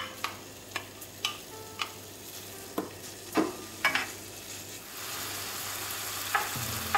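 Diced lardons frying in butter in a frying pan, stirred with a silicone spatula that taps against the pan several times. About five seconds in, the sizzling grows louder and steadier.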